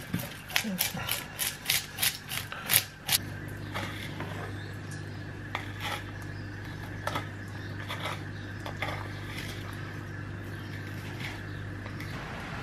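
Hand fish scaler scraping scales off a kahawai on a wooden chopping board: a fast run of rasping strokes, about four a second, for the first three seconds. After that come only a few fainter scrapes over a low steady hum, which stops near the end.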